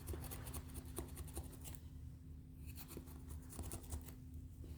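Knife cutting off the excess ends of a rubber tire plug flush with the tread: a run of faint, scratchy sawing strokes with a short pause about two seconds in.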